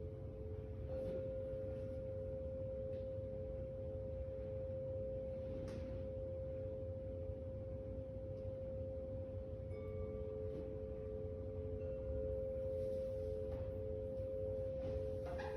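Tuning-fork chime bars ringing in long, pure sustained tones, two pitches close together. The higher tone brightens with a fresh strike about a second in, and the lower one wavers gently in loudness.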